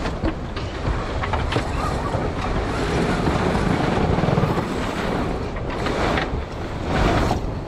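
Wind buffeting the microphone of a camera mounted on a sailboat's mast: a steady, dense rushing noise that swells somewhat near the middle.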